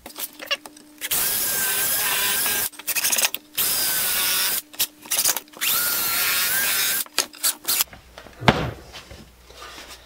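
Cordless drill driving screws into the wooden birdhouse base from the side. The motor runs in three steady stretches of a second or more with a high whine, with short clicks between them and one knock near the end.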